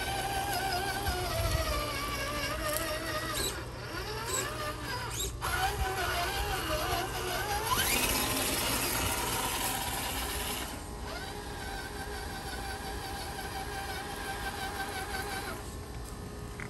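Traxxas TRX-4 RC crawler's electric motor and geared drivetrain whining as it drives over wood mulch, the pitch wavering up and down with the throttle. About eight seconds in the whine rises sharply as it speeds up, then settles to a steadier tone.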